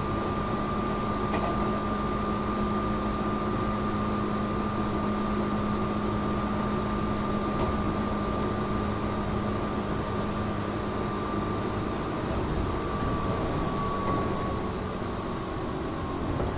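Tobu 8000 series resistor-controlled electric train running, heard from inside the car: steady wheel-and-rail rumble with a steady hum that fades about two-thirds of the way through.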